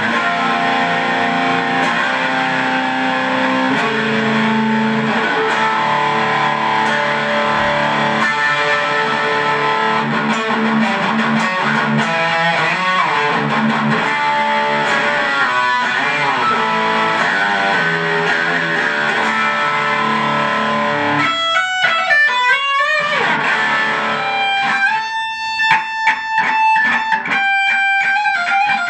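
Electric guitar played through a Boss Katana Mini amp on its high-gain brown channel: dense, sustained distorted chords and riffs. About twenty seconds in, it changes to sparser single notes with gaps between them.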